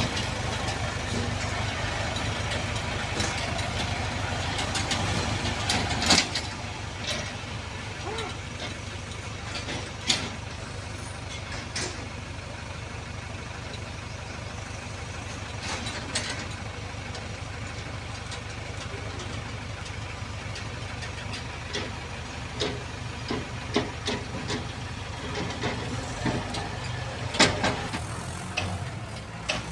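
Diesel engines running steadily with a low rumble. For the first six seconds it is louder, as the Deutz-Fahr tractor pulls a loaded trolley, then drops to a quieter steady running. Scattered sharp knocks and clanks sound through it.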